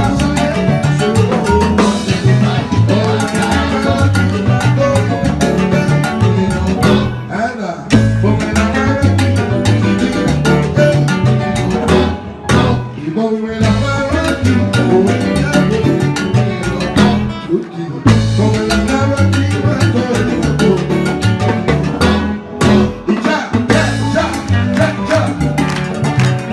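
Cuban timba band playing salsa live, with drum kit and percussion driving a steady beat. The music drops out briefly several times, about every five seconds.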